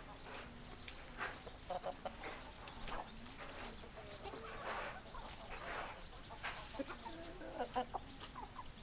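Hens clucking: several chickens making short, repeated clucks and calls, with a few longer drawn-out calls about halfway through.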